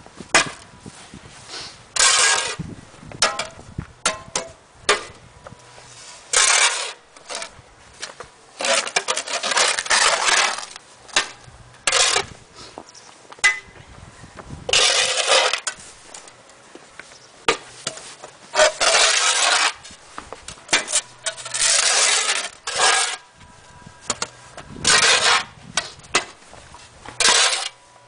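Snow shovels scraping across snow-covered paving in repeated strokes, each a harsh scrape of up to about a second, with occasional clinks of a blade.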